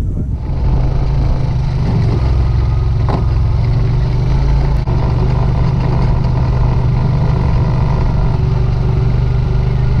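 Farm quad bike engine running steadily as it drives across a grass paddock.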